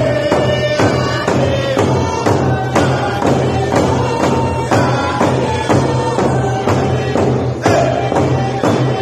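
Hand drum struck with a beater in a steady beat, a little over two strokes a second, with a man's voice singing a melody over it.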